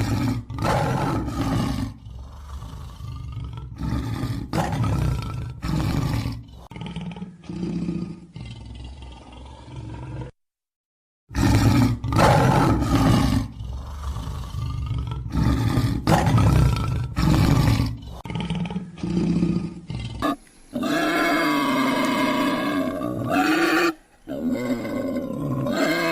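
Big cat roaring: a series of deep, loud roars repeated every second or so, with a break of about a second near the middle. Near the end a different, longer animal call with a steady pitch takes over.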